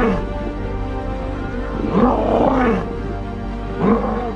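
Background music of steady held tones, with a swooping sound that rises and falls in pitch, heard three times.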